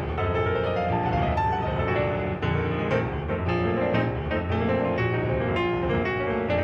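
Instrumental music with piano prominent, many notes struck in close succession over a fuller accompaniment.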